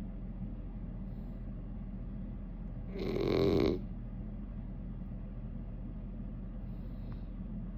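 One loud, rattling snore about three seconds in, lasting under a second, over a steady low hum; the next snore begins at the very end.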